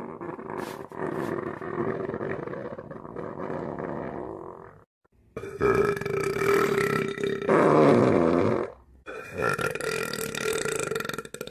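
Long, drawn-out belches, three in a row, each lasting several seconds and holding a steady pitch, with short pauses between them about five and nine seconds in.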